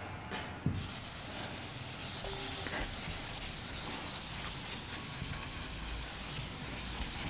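Chalkboard duster rubbed back and forth over a blackboard, wiping off chalk: a steady scrubbing noise made of many quick strokes that picks up about a second in.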